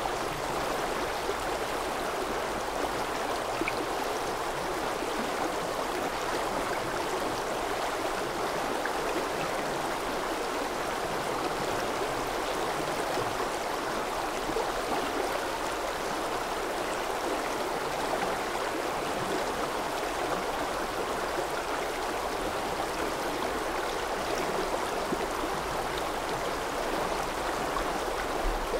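A mountain stream rushing steadily: an even, unbroken wash of running water.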